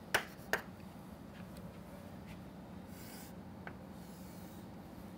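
Chalk drawing on a chalkboard: two sharp taps of chalk on the board near the start, then fainter scratchy strokes as lines are drawn, with one more tap later on.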